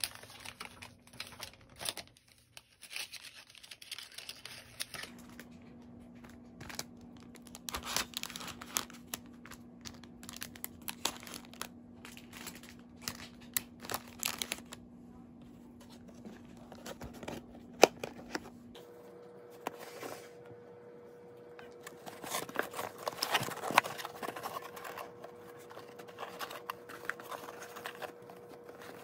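Clear plastic cookie bags crinkling and rustling as they are handled and pressed down into a molded-pulp takeout box, with scattered light taps and crackles. A faint steady hum sits underneath.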